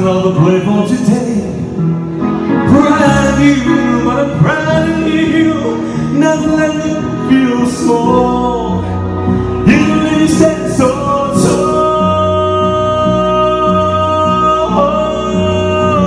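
Man singing live into a handheld microphone over instrumental backing, ending on a long held note over the last five seconds or so.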